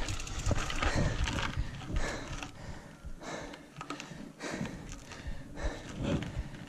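Heavy, quick breathing of a cyclist out of breath on a steep uphill climb, one breath coming about every half second to second.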